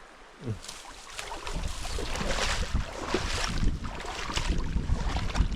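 Wind buffeting the microphone over flowing river water. A louder hissing rush swells about two seconds in and lasts a second or two.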